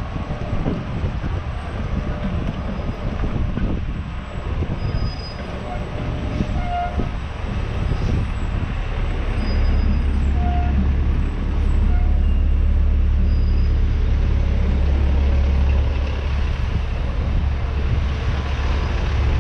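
Busy street ambience: road traffic and the voices of passers-by, with a deep low rumble that grows louder about halfway through and holds.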